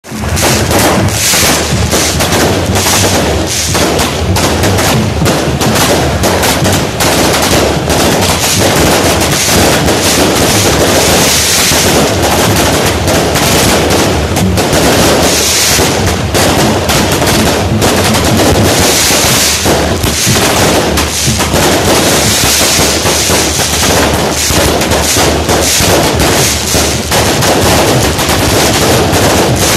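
Multi-shot consumer firework cake firing a loud, rapid, unbroken volley of shots and crackling bursts, one after another.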